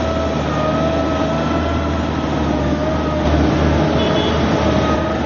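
Snowcat engine running steadily at a constant pitch, with a steady whine over its low engine note.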